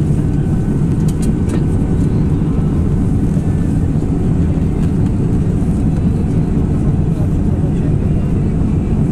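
Steady cabin noise inside an Airbus A319 in flight: an even, unchanging roar of engines and airflow, heaviest in the low end.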